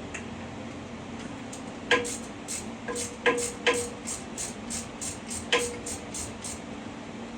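Sharp metallic clanks and taps of tools and bolt hardware as a lower shock-absorber bolt is worked out. A few of the clanks ring briefly, with a quick run of lighter clicks in between.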